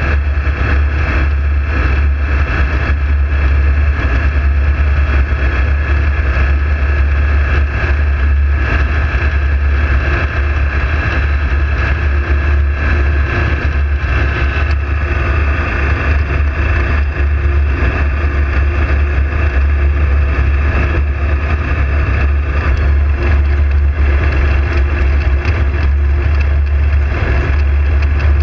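Steady engine drone in flight, mixed with wind rushing over the microphone.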